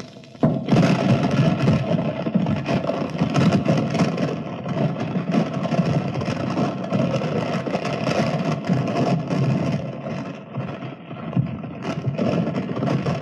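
Wooden suspension bridge creaking and straining under weight, as a recorded sound effect. It is a dense, steady scraping and groaning of wood that starts suddenly about half a second in.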